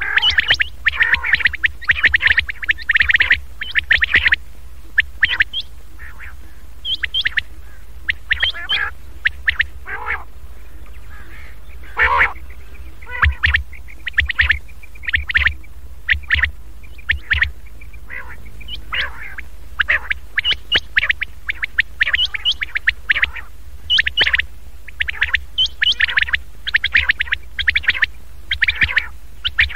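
Recorded common quail calls played as a lure to draw in quail: clusters of quick repeated short notes with brief pauses between them, over a steady low hum.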